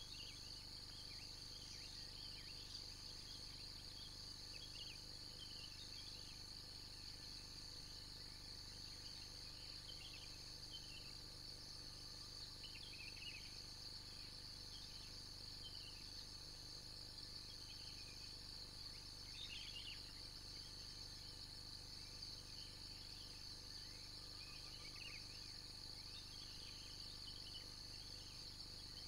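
Faint outdoor ambience of insects chirring steadily in a high, fast-pulsing chorus, with scattered short bird chirps.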